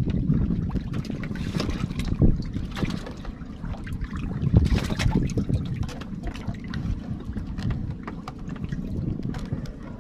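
Water lapping against a small wooden boat's hull and wind buffeting the microphone, with scattered light knocks and clicks throughout as a longline is hauled in by hand.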